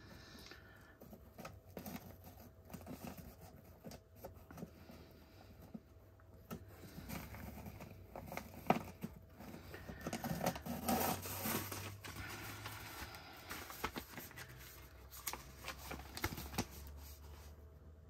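Packaging being handled: crinkling and rustling with scattered clicks and light knocks, busiest around ten seconds in.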